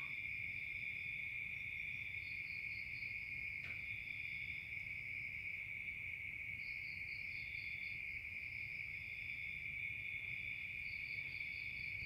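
Night-time crickets and other insects singing: a steady, unbroken high trill, with a higher pulsed chirping that joins in several times.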